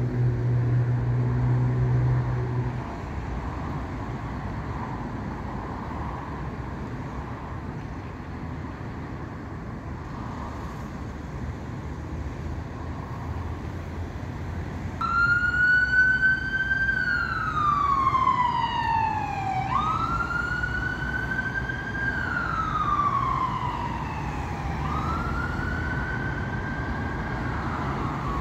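NHS ambulance siren coming on about halfway through in a slow wail, its pitch rising quickly and falling slowly about every five seconds, over steady road traffic. A vehicle engine drones low for the first few seconds.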